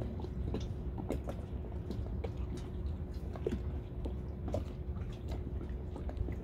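Small harbour waves lapping and slapping irregularly against a boat hull, heard as many short uneven clicks and splashes over a low wind rumble on the microphone, with a faint steady hum.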